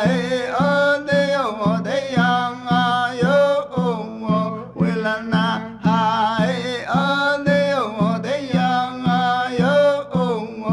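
Music: a singing voice with gliding, bending notes over a plucked-string accompaniment that keeps a steady beat of about two notes a second.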